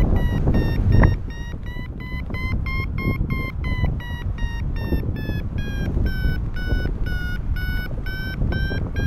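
Paragliding variometer beeping steadily, about three beeps a second, its pitch shifting a little: the climb tone that signals the wing is rising in lift. Wind rushes over the microphone throughout, with a stronger gust about a second in.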